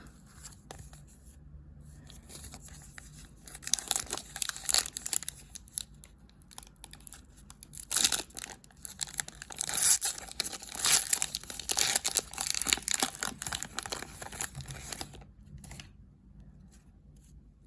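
A trading card pack's wrapper being torn open and crinkled by hand. The tearing and crinkling come in a run of crackling bursts, starting a few seconds in and stopping a couple of seconds before the end.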